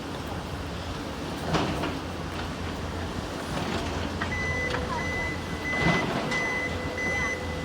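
Steady low rumble of engine noise. A little past halfway, a vehicle's reversing alarm starts beeping about twice a second. Two short knocks stand out over the rumble.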